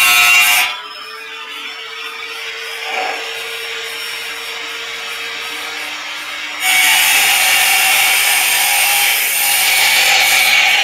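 Handheld angle grinder cutting thin galvanized light-steel channel with a harsh, loud grinding. About a second in, the disc comes off the metal and the grinder runs freely with a quieter steady hum. Past the halfway point it bites into the steel again and the loud grinding resumes.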